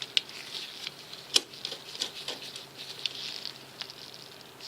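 Small metal parts clicking and scraping as a pocket clip is fitted to a folding knife's aluminium scale, with light scratchy handling and one sharper click about a second and a half in.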